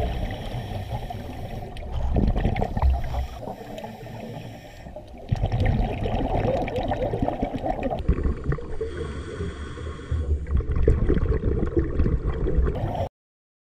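Underwater sound picked up through a camera housing: a low muffled rumble with gurgling scuba exhaust bubbles. It shifts abruptly twice and cuts off suddenly about half a second before the end.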